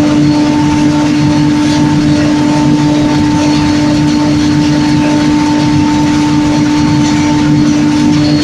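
Lintec CSD 3000 asphalt mixing plant running in production, with its drying-drum burner firing: a loud, steady mechanical drone with a constant low hum and a fainter higher tone.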